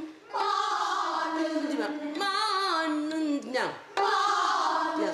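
A woman singing in Korean traditional style, gayageum byeongchang vocal, with long held notes, heavy wavering vibrato and slides between pitches. The phrases break briefly just after the start and again near four seconds in.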